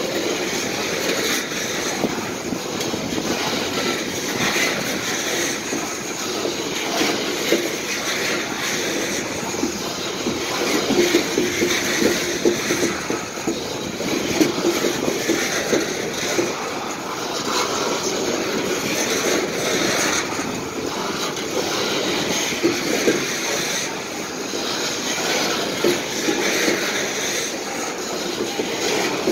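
Coal train hopper cars rolling past at close range: a steady rumble of steel wheels on rail, broken by a continual irregular clicking and knocking as the wheels pass over the rail joints.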